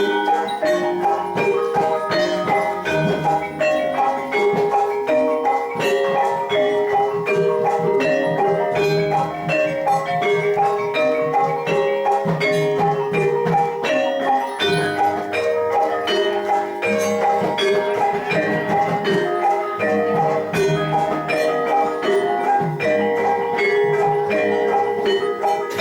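Javanese gamelan playing jathilan accompaniment: bronze metallophones struck with mallets in a quick, busy, ringing pattern, with lower strokes coming and going underneath.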